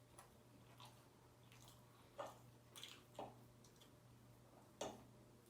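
Faint close-up chewing of vegan lasagna: a few short, wet mouth clicks and smacks, the loudest near the end, over a low steady hum.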